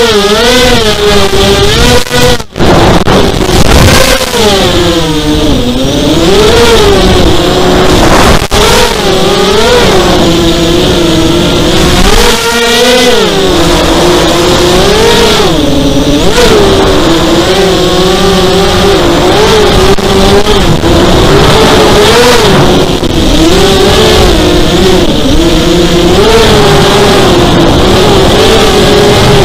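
FPV racing quadcopter's electric motors and propellers whining loudly, heard from its onboard camera, the pitch rising and falling constantly as the throttle changes through the turns. The sound cuts out briefly about two and a half seconds in.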